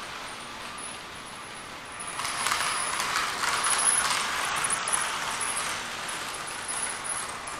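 Model train running along the track of the outer loop, getting louder about two seconds in as it passes nearest, then easing off again.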